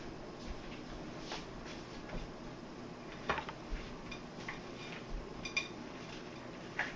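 Faint steady hiss of room tone with a handful of small clicks and taps scattered through it, the sharpest about three seconds in and just before the end.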